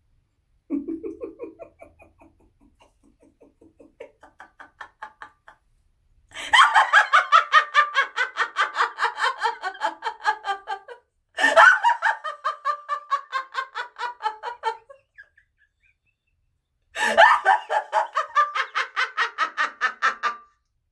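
A woman's acted villain's laugh. It starts as a lower, quieter chuckle, then breaks into three long bouts of loud, rapid, high-pitched laughter with short pauses for breath between them.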